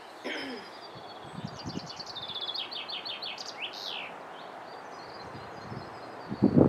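A small songbird sings one song: a quick run of repeated high notes, then a few sweeping notes, over a steady background hiss. A short low thump comes near the end.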